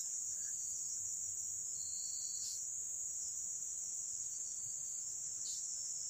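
Steady, unbroken high-pitched drone of forest insects, with one short, lower note about two seconds in.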